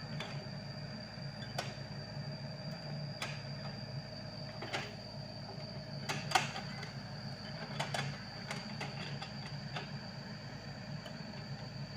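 Sany SY55C mini excavator running steadily under a working load as its bucket digs through root-laced soil, with sharp clicks and knocks every second or two, the loudest about six seconds in.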